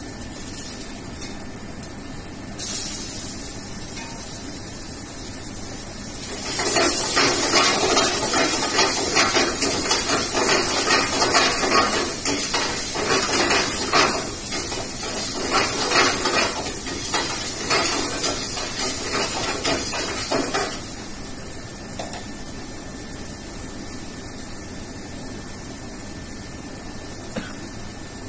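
Food frying in a pan over a gas burner, a steady hiss. About six seconds in it turns to a loud sizzle with the metal ladle scraping and knocking against the pan, settling back to a quieter hiss about twenty seconds in.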